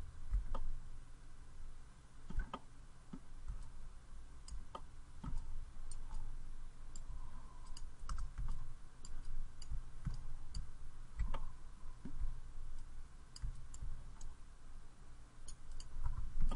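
Irregular clicks of a computer mouse and keyboard being worked, a few dozen scattered sharp taps over a faint low hum.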